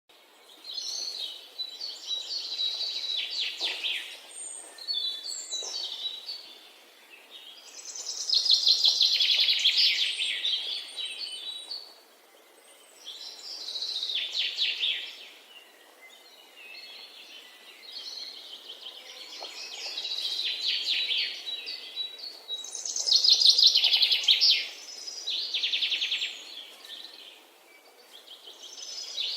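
Small songbird calling in repeated bursts of rapid, high-pitched chattering trills, each a second or two long, with short pauses between.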